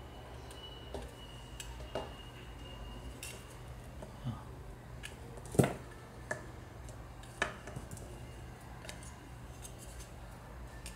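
Scattered small clicks and clinks of craft wire and small pliers being handled as wire is wrapped around a wooden spatula handle, with one sharper knock a little past halfway.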